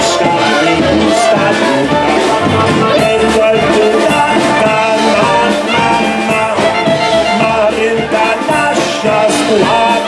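Live polka band playing a polka, with clarinet on the melody over keyboard and drums with a steady beat.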